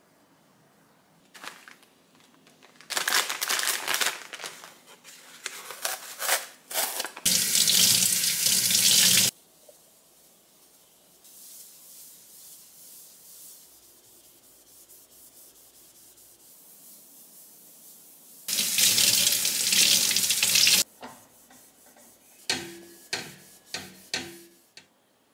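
Kitchen tap turned on and off twice, each time running for about two seconds, with uneven rubbing of a cleaning cloth and melamine sponge on the countertop between. Near the end, a quick run of light knocks with a faint metallic ring as a stainless-steel shelf is wiped.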